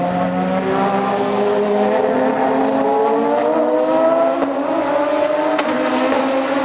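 Two race cars' engines accelerating as they pass together. Their notes rise steadily for about four seconds, then hold.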